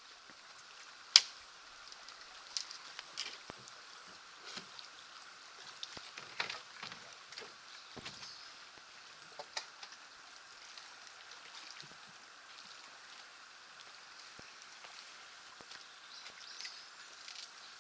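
Faint, irregular footsteps and scuffs on a rocky forest trail, with one sharp click about a second in, over a steady faint hiss.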